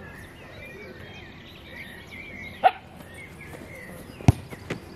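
A short, sharp shouted "hep" about two and a half seconds in, the signal for the goalkeeper to adjust his position. About a second and a half later a football is struck hard, followed closely by a lighter thud as the ball is met. Birds sing throughout.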